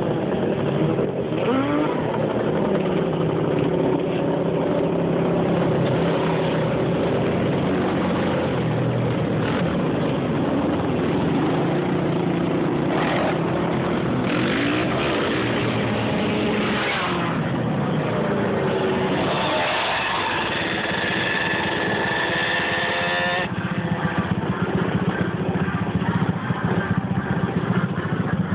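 Quad ATV engines revving up and down as the quads ride back and forth, the pitch climbing and falling with the throttle. About twenty seconds in, one engine is held at high revs for a few seconds and then drops off suddenly.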